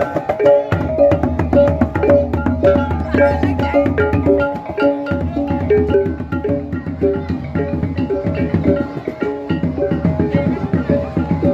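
Balinese gamelan beleganjur processional music: kendang drums and clashing cengceng cymbals over a repeating melody of pitched gong notes, at a steady driving beat.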